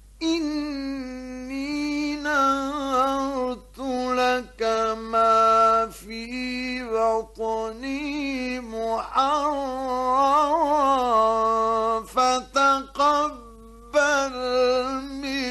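A man chanting the Quran in the melodic, ornamented recitation style, holding long notes and bending the pitch, with short breaks between phrases. The voice comes in just after a pause.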